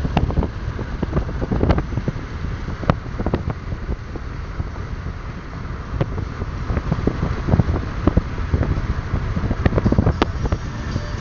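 Wind rushing and buffeting the microphone of a phone held at a moving car's window, with irregular gusty thumps over steady road noise from the car.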